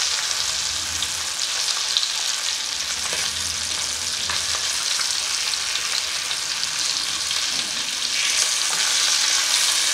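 Masala-coated fish steaks frying in hot mustard oil in a pan: a steady sizzle with small crackles as the pieces are turned, growing a little louder about eight seconds in.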